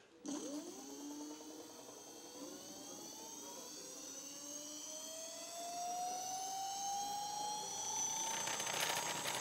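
Dualtron Thunder 2 electric scooter's hub motor spinning its lifted wheel freely, a motor whine that glides steadily upward in pitch as it speeds up, with a rougher buzz joining in near the end. It is a bench test of the controller, running the motor after its burnt MOSFETs were replaced.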